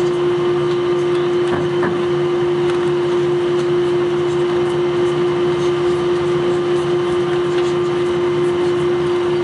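Steady cabin drone inside an Airbus A321 taxiing, the engines and air system heard from a seat over the wing: a constant hum with one strong, even tone.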